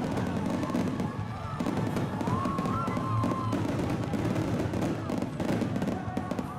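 Fireworks display going off in quick succession: a dense rumble of bursts with crackling throughout.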